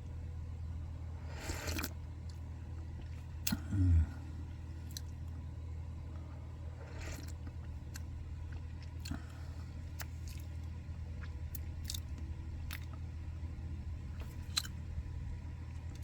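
Short slurping sips of tea, about three of them, with a brief low hum of the voice near four seconds and a few light clicks, over a steady low room hum.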